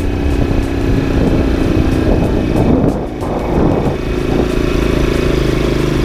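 Honda TMX 155's single-cylinder four-stroke engine running under load as the motorcycle climbs a hill, with wind rushing over the microphone. The engine note dips briefly about three seconds in, then carries on steadily.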